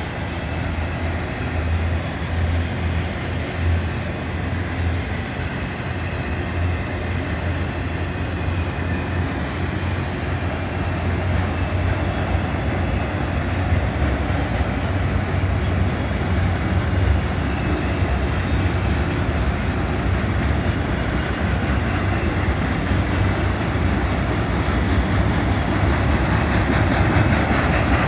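Freight cars of a long BNSF manifest train rolling past: a steady heavy rumble and clatter of steel wheels on the rails, growing slightly louder toward the end.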